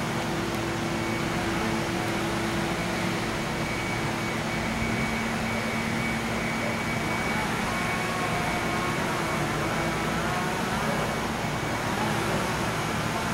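Steady outdoor background rush with a faint low hum, like distant traffic or machinery, with no distinct events.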